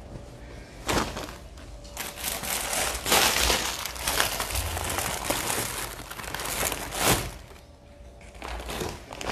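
Plastic packaging crinkling and crackling as it is handled. There is a sharp crackle about a second in, then dense crinkling for several seconds with a loud crackle near seven seconds, and it thins out to a few soft rustles near the end.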